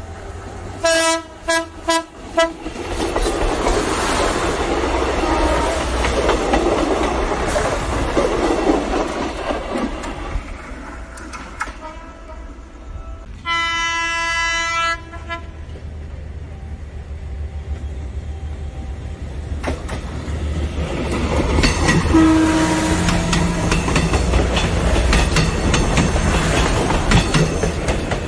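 A passenger train sounding its horn: a run of short toots about a second in, then one long blast about 14 seconds in. The train's running rumble on the rails swells near the end, with a rhythmic clickety-clack over the rail joints as it passes close.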